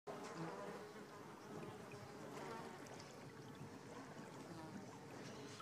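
Faint, steady ambience inside a boat's cabin: a low buzzing hum over a soft watery wash.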